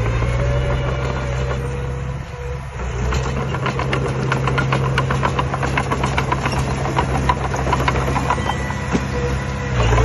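Heavy diesel dump truck engines running steadily at low revs, with a rapid run of sharp clattering knocks from about three seconds in until near the end.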